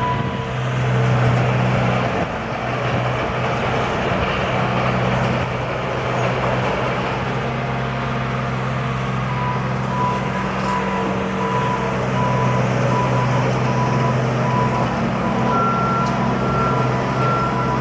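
Construction machinery engine running steadily. From about halfway through, a backup alarm beeps at about two beeps a second, and near the end a second, slightly higher-pitched backup alarm joins it.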